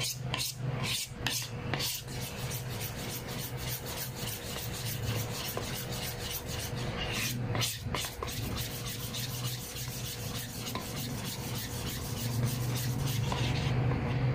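Pancake batter being stirred briskly in a large bowl, the utensil scraping the bowl's sides and bottom in quick repeated strokes, a few a second. The batter, thick with crushed chocolate sandwich cookies, is being mixed until combined.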